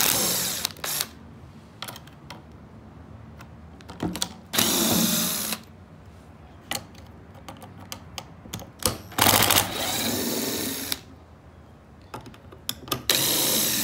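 Cordless power driver with a socket bit running in short bursts as it backs out the cover screws of a pool pump controller: about four runs of a second or two each. Light clicks and handling knocks come between the runs.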